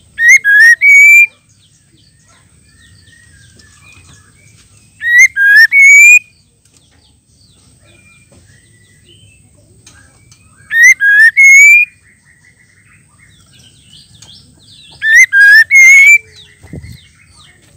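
Female white-rumped shama calling: a loud, short phrase of rising whistled notes, repeated the same way four times about every five seconds, with faint softer twittering between phrases.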